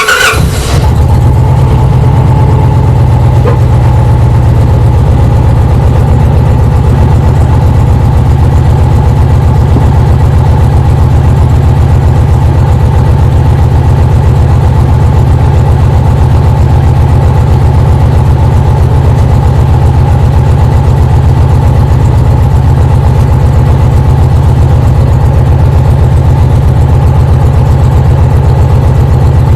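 Motorcycle V-twin engine of an Indian Challenger, started at the outset and then idling steadily and loudly.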